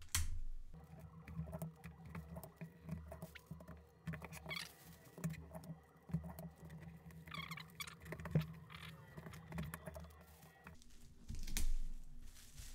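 Thin tissue pattern paper rustling and crinkling as it is handled, smoothed and pressed flat on a table, with small clicks and scratches of tape being pulled from a desk dispenser and pressed down. A faint steady hum runs underneath and stops suddenly near the end.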